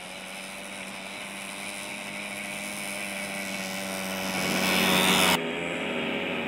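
Small moped engine running at a steady pitch, growing steadily louder as the moped rides closer. About five seconds in, the sound cuts sharply to a different moped engine.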